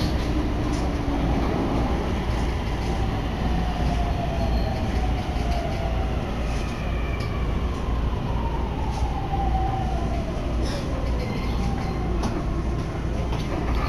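Toei Shinjuku Line subway train heard from inside the carriage: a steady rumble of wheels on rail, with a motor whine falling in pitch as the train slows.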